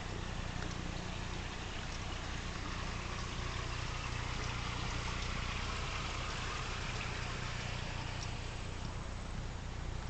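Steady rushing noise like flowing water, swelling slightly midway, over a low steady hum.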